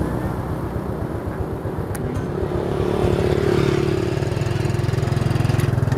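Motor vehicle engine running steadily at low road speed, growing louder in the second half.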